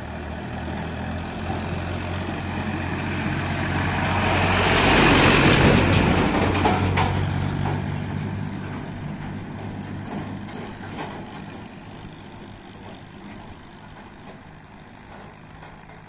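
Diesel tractor pulling a trolley drives up and past close by, its engine running with a steady low hum. It is loudest about five to six seconds in, then fades away as the tractor moves off down the road.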